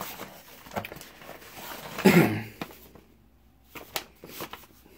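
Cardboard shipping box and paper packaging being handled: rustling and scraping with a few light clicks and taps, and a brief low voice-like murmur about two seconds in. It goes quieter after about three seconds, with a few sharp ticks near the end.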